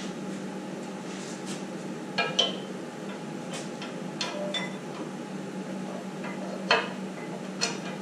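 Scattered metallic clinks and knocks as the steel safety brace on a Cat 420E backhoe's loader lift arm is raised and its pin put through, one sharper knock near the end. A steady low hum runs underneath.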